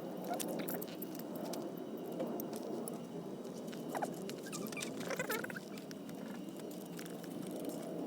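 Firewood burning in a small wood stove: frequent sharp crackles and snaps over a steady low rush. A couple of short squeaky calls about halfway through.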